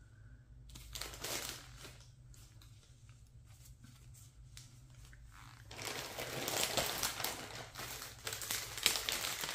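Plastic packaging crinkling as socks are handled: faint, scattered rustles at first, growing louder and denser from about six seconds in.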